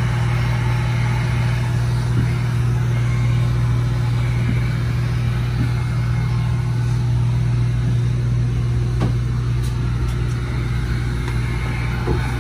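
Handheld electric heat gun running steadily, its fan blowing hot air to heat-shrink window tint film on a car's back glass: an even hum with airflow rush.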